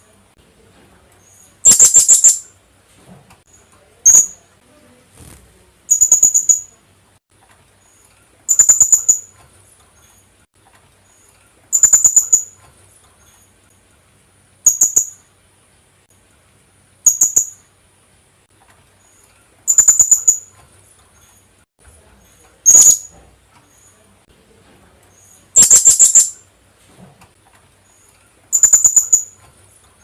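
Philippine hanging parrot (kulasisi) calling: shrill, high-pitched call notes with a fast pulsing edge, repeated about every two to three seconds, some brief and some nearly a second long.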